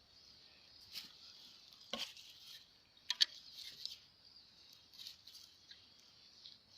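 Footsteps crunching on dry vegetation: a few sharp crackling snaps about one, two and three seconds in, over a steady high-pitched hiss.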